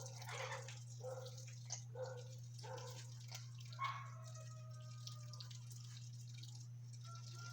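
Parrots making a string of short pitched calls, then a brief whistle about four seconds in, over a steady low hum.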